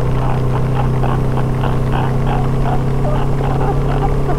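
Yamaha R25's parallel-twin engine holding a steady cruise, a constant drone heard from the rider's position, with wind and road noise.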